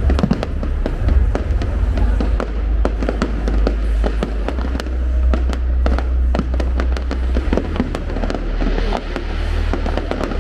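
Fireworks display going off: a dense, continuous run of sharp bangs and crackles.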